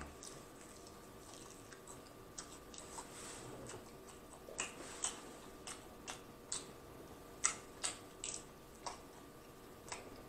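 Close-miked chewing of battered fried shrimp: irregular crisp crunches and wet mouth clicks, sometimes two or three close together, then a few seconds apart.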